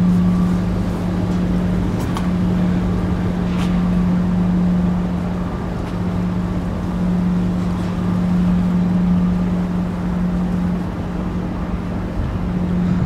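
Union Pacific diesel-electric locomotives' engines running with a steady low drone as they pull a coke train, with a few faint clicks.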